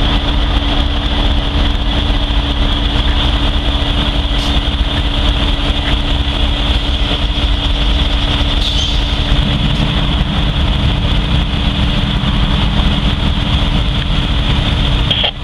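Norfolk Southern diesel-electric locomotives idling: a steady low rumble with a constant high whine over it.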